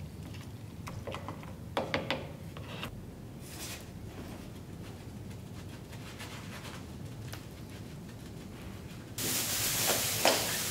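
Small knocks and scrapes of hand tools and plastic cups being handled at a workbench. About nine seconds in, plastic sheeting starts rustling loudly, with a few crackles.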